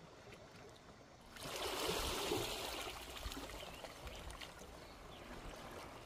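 Seawater splashing and trickling against the rocks at the water's edge. It swells suddenly about a second in and then fades slowly.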